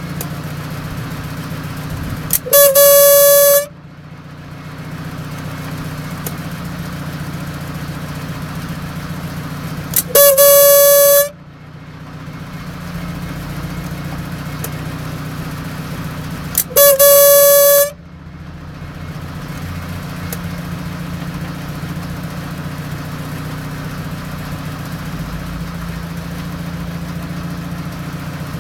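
Mazda RX-7 FD3S twin-turbo rotary engine idling, broken three times by a loud, honking tone about a second long, steady in pitch after a small upward slide at its start; the idle sound dips after each honk and picks back up over a couple of seconds. The owner puts the honk down to the FSE fuel pressure regulator and wonders whether it is linked to the engine dying.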